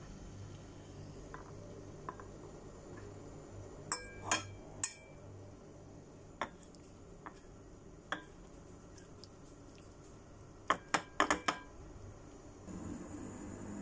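Metal fork clinking against a ceramic plate and pot as cooked eggplant is handled: scattered sharp clinks, then a quick run of several clinks about eleven seconds in, over a low steady hum.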